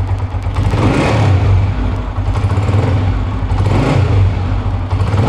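Honda CG125's air-cooled single-cylinder pushrod four-stroke engine idling, swelling briefly twice, about a second in and near four seconds. It has freshly replaced push rods and runs smoothly, with no push-rod noise.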